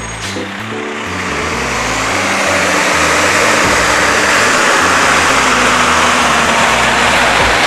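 Propane tank truck driving over the railroad crossing at close range: its engine and tyre noise build over the first couple of seconds and then stay loud as it passes.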